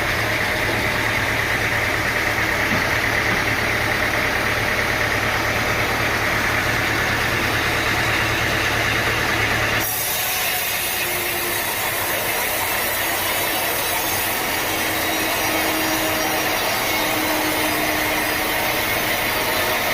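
Sawmill machinery running steadily: a low engine hum under the sound of sawing wood. About halfway through the sound changes abruptly to a thinner, hissier machine sound with much less low hum.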